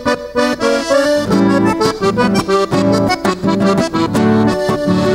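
Accordion playing a lively instrumental passage of quick melody notes and chords, with bass notes joining about a second and a half in: the gaiteiro's accompaniment between the sung verses of a gaúcho trova.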